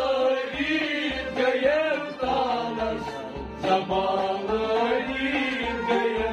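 Kashmiri Sufi kalam: a male voice sings a wavering melody over held harmonium chords, with a low drumbeat pulsing underneath about twice a second.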